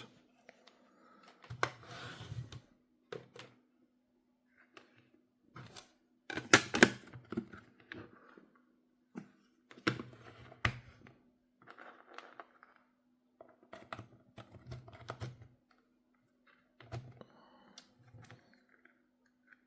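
Scattered clicks and light knocks from handling a digital earth tester and its test leads, pressing its buttons and connecting a resistor, over a faint steady hum.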